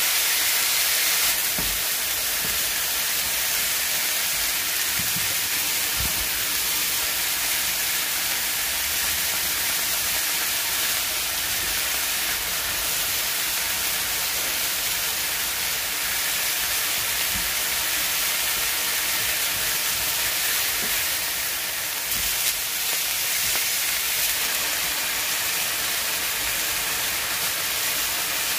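Food frying in a pan, a steady sizzling hiss with a few faint low knocks.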